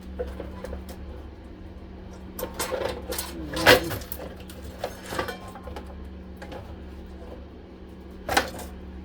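Scattered metallic clinks and clatter from hand work on the springs holding a central vacuum's motor, with two sharp knocks, the loudest about three and a half seconds in and another near the end. Under it runs the steady hum of a wood stove blower.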